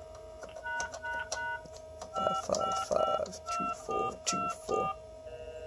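Touch-tone (DTMF) keypad beeps from an escape-room pay phone being dialled. About a dozen short beeps come one per button press, each with a light key click, over a steady background tone. This is the reset number being keyed in.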